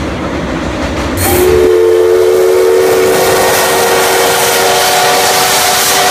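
For about the first second, the low rumble of the C57 180 steam train running over a girder bridge. It cuts to C61 20 steam locomotive standing with steam blowing off: a loud steady hiss with several sustained whistling tones over it.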